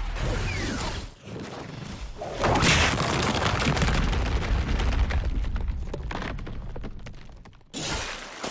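Anime fight sound effects over a low rumble: booming impacts, a loud crash about two and a half seconds in, then a rapid run of short cracking hits that fades away before a fresh hit near the end.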